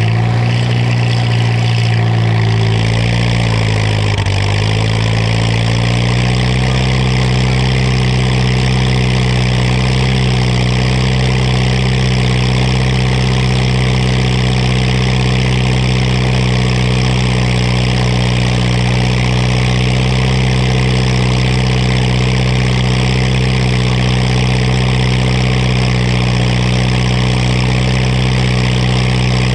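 Oliver 66 tractor's four-cylinder engine running, heard close to its upright exhaust stack. Its speed wavers and dips over the first few seconds, then holds steady.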